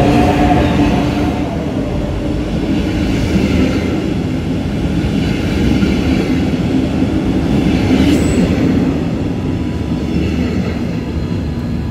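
A train moving along the platform: a steady rumble of wheels on the rails. A humming tone fades out in the first second or so, and there is a short high squeal about eight seconds in.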